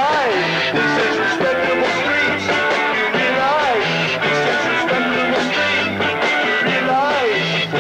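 A rock band playing live: electric bass, guitar and drums driving steadily, with a falling pitched swoop that comes back about every three and a half seconds, recorded through an early consumer camcorder's microphone.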